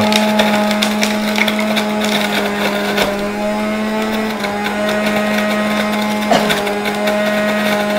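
Electric juicer's motor running at speed while juicing orange segments: a steady hum with the noise of the fruit being ground through it.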